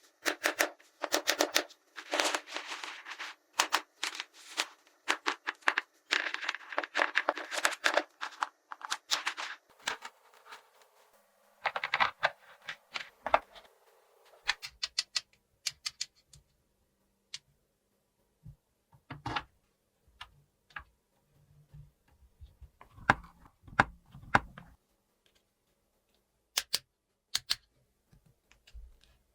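Small hard plastic toy pieces clicking and rattling as they are handled: a dense run of quick clicks for about ten seconds, then scattered single clicks and taps.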